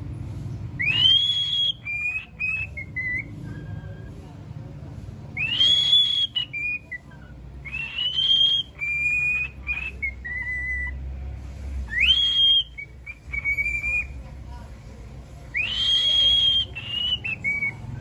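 Cockatiel singing a whistled song: a rising whistle held high, then a few shorter, lower notes, the phrase repeated five times.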